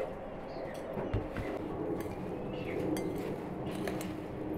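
Light clinking and clicking of dishes and utensils during food preparation, with a soft knock about a second in.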